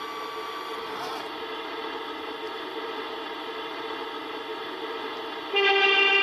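Electronic sound module of a Tamiya RC fire engine model playing a steady simulated engine hum through its small speaker. Near the end a louder two-tone siren starts suddenly.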